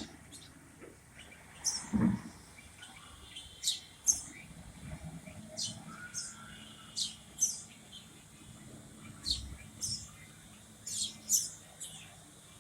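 Small birds chirping, short sharp high-pitched calls repeated every second or so, with a low thud about two seconds in.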